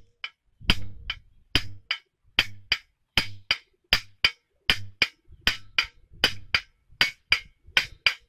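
Sharp wooden-sounding knocks in a steady rhythm, coming in pairs a little under one pair per second, with a low thud under many of them, like a percussion beat.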